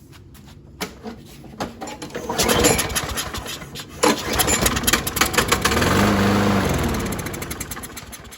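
Briggs & Stratton 190cc mower engine pull-started on carb cleaner sprayed into the intake: it catches, runs roughly for a few seconds, revs up and then winds down and dies. The engine has spark but does not run on its own fuel supply.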